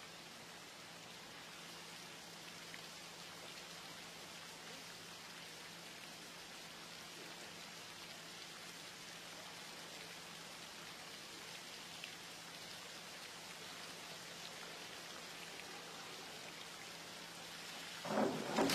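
Steady, rain-like hiss of water at a diving pool, with a faint low hum underneath. Near the end a sudden, much louder noise breaks in.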